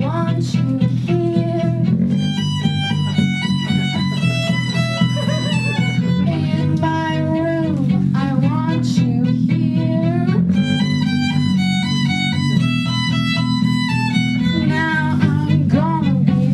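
A small band playing live music: violin and electric guitar over a steady low drone, with quick stepping high notes and sliding pitches.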